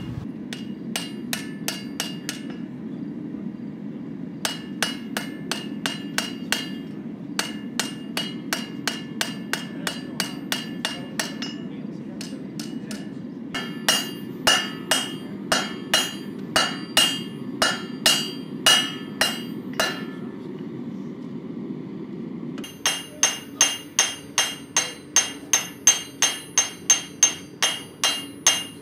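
Blacksmith's hand hammer striking red-hot round steel bar on an anvil in runs of rapid ringing blows, about three to four a second, with short pauses between runs. A steady low rumble runs underneath. In the last six seconds the blows come in a faster, more even run with a brighter ring, at a different anvil.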